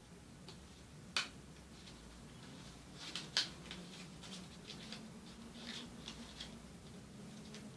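A sheet of origami paper being folded and creased by hand: faint rustling with scattered sharp crackles, the loudest about three and a half seconds in, over a low steady hum.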